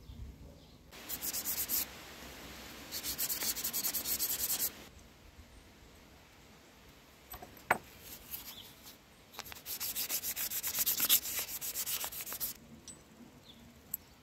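Sandpaper rubbed by hand against a small metal bushing from a brushcutter's centrifugal clutch, in three spells of quick back-and-forth strokes, the longest about three seconds. The bushing is being sanded because it does not move freely. A single sharp click falls between the spells.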